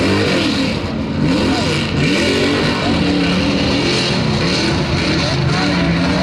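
Mud truck engine revving hard, its pitch rising and falling over and over as the throttle is worked.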